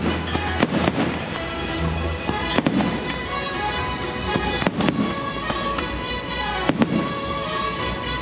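Fireworks going off, about half a dozen sharp bangs a second or two apart, over steady music.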